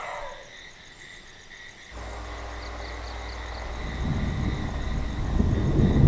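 Night chorus of insects and frogs, a steady high chirring with a faster pulsing trill above it. About two seconds in a low steady hum starts, and from about four seconds a louder, uneven low rumbling noise builds up.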